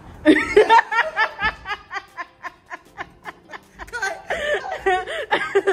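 A woman laughing hard in a long run of quick pulses, about five a second, with a second burst of laughter about four seconds in.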